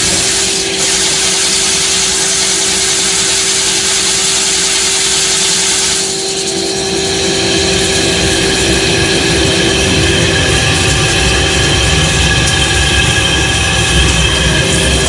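Metal-cutting machine tool running steadily: a loud continuous mechanical noise with several steady whining tones. The sound briefly dips and changes character about six seconds in.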